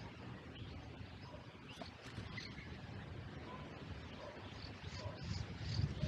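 Faint, short, high bird chirps scattered over a low outdoor rumble that grows louder near the end.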